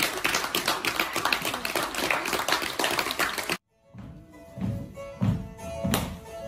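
Langleik, the Norwegian droned zither, playing a lively halling dance tune in quick plucked strokes. It cuts off suddenly about three and a half seconds in, and the langleik comes back softer, its drone strings holding steady notes under low thumps about every half second.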